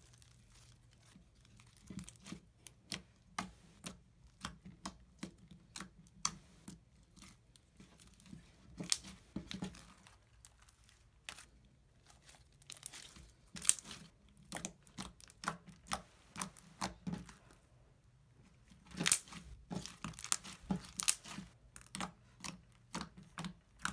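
Floam slime packed with foam beads being squeezed, folded and stretched by hand, giving irregular crunchy crackles and pops. The crackling comes in uneven clusters, loudest a little past the middle and again in the last few seconds.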